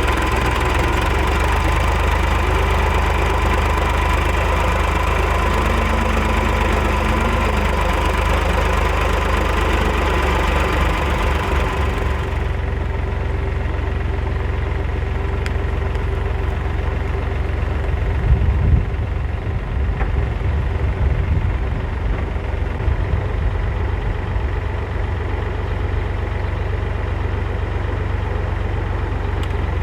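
Backhoe engine running steadily, with a few heavier low surges about two-thirds of the way through.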